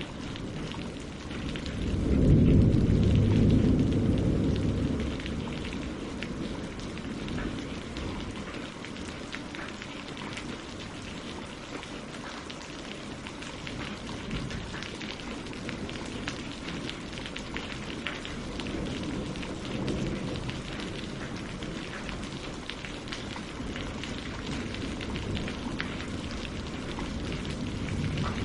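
Steady rain falling on lake water and tree leaves, a dense patter of small drops. A low rumble swells about two seconds in and fades by about five seconds, with a fainter one later.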